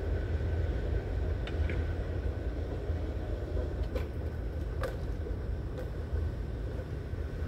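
Low, steady rumble of a departing freight train, with a faint steady high whine and a few faint clicks.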